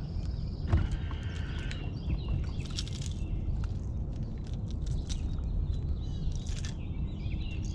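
Small birds chirping with short whistled calls over a steady low rumble, with scattered light clicks and rattles as the jerkbait's hooks are worked out of a largemouth bass's mouth.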